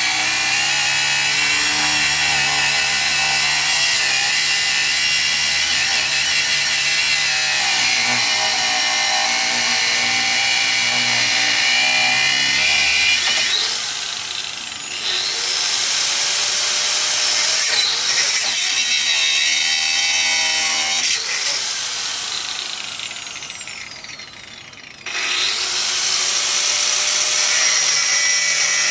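Mains-powered Makita GA5030R 720 W angle grinder cutting into a steel bike lock with a loud, steady grinding whine. About halfway through the disc briefly slows and picks up again. Near the end it winds down with a falling whine for a few seconds, then starts cutting again at full speed.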